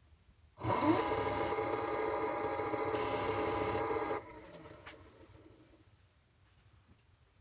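Nova DVR XP wood lathe's direct-drive motor starting with a short rising whine, then running steadily with a whining hum for about three and a half seconds. It drops off abruptly about four seconds in, and a fainter hum fades out by about six seconds in.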